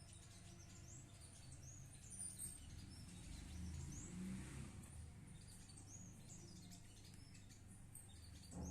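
Small birds chirping faintly: many short, high chirps scattered through, over a low steady hum.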